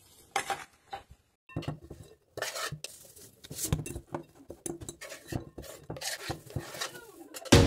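Forks and a spoon clicking and scraping against bowls as food is stirred and mixed, in short irregular bursts with brief pauses. Loud music starts just before the end.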